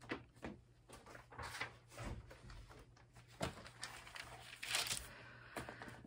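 Quiet rustling and a few soft knocks of a book being handled and its pages turned to find a reading.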